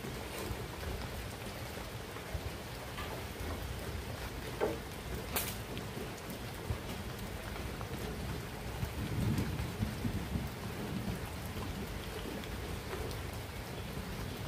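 Steady rain with a low rumble of thunder that swells about nine seconds in. There is one sharp knock about five seconds in.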